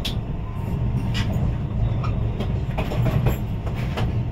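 Cabin noise of a CR400AF-Z Fuxing high-speed train in motion: a steady low rumble with scattered sharp clicks at irregular intervals.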